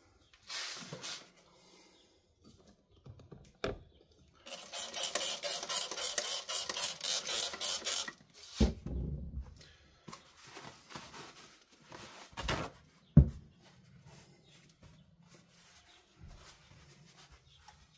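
Trigger spray bottle of glass cleaner pumped rapidly, about five quick hissing sprays a second for three to four seconds, onto a sheet of glass. A few knocks follow, the sharpest about thirteen seconds in.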